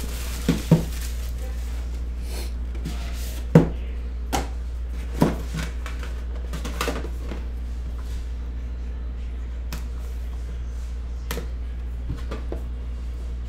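Plastic shrink wrap crinkling as it is torn off a trading-card box, then scattered clicks and knocks as a metal card tin and a card pack are handled, the sharpest knock about three and a half seconds in. A steady low hum runs underneath.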